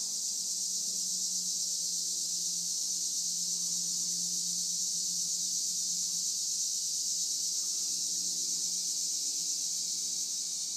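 Steady, unbroken high-pitched chorus of insects.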